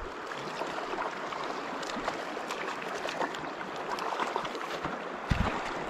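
Steady rush of a shallow river running over rocks, with a brief low thump about five seconds in.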